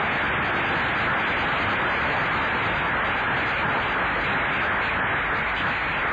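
A steady, even hiss of static noise.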